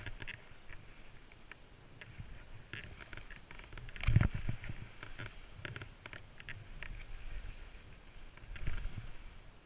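Skis swishing through powder snow in irregular short strokes over a low rumble. There is a heavy thump about four seconds in and a smaller one near the end.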